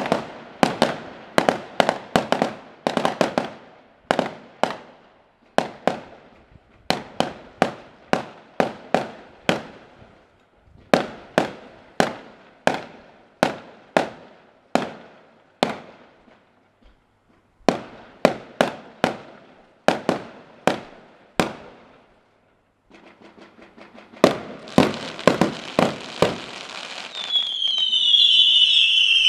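Fireworks finale: aerial shells bursting in fast runs of sharp bangs, two or three a second, with short pauses between runs. Near the end a dense crackle builds, then a loud whistle sliding down in pitch as whistling fireworks climb.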